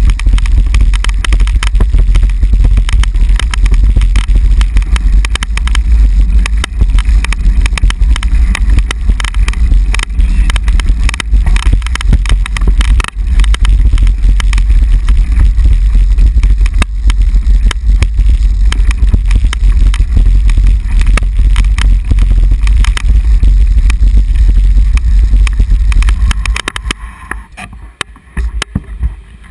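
Loud rumble and rattle from a bicycle-mounted camera jolting over cobblestones, mixed with wind buffeting on the microphone. Near the end it drops much quieter as the bike rolls onto smooth asphalt.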